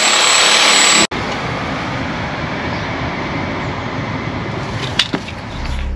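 A power tool working into hard mortar in brickwork, loud and steady, cuts off abruptly about a second in. A quieter steady noise follows, with two sharp clicks near the five-second mark, and a low musical hum starts near the end.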